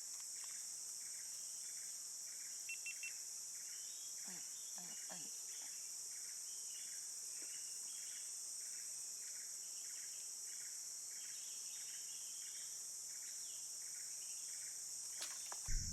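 Insects in riverside forest: a steady high-pitched drone with a short chirp repeating about twice a second over it.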